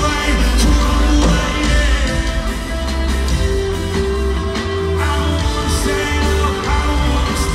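A band playing loud live music in an arena, with a heavy, steady bass, recorded from far back in the crowd.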